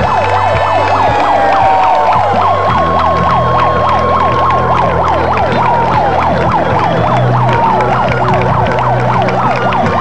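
Police car siren on a fast yelp, rising and falling about four times a second, with a slower wailing siren tone running over it.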